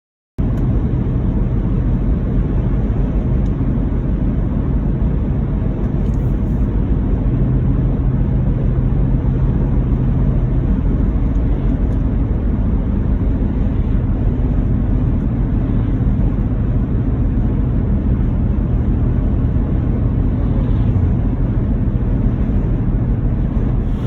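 Car driving at a steady speed: a steady low rumble of engine and road noise with a faint hum, cutting in abruptly about half a second in.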